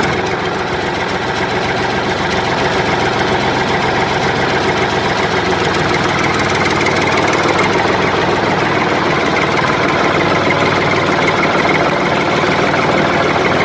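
Small DC electric motor of a homemade miniature tractor running steadily, with a constant mechanical whir.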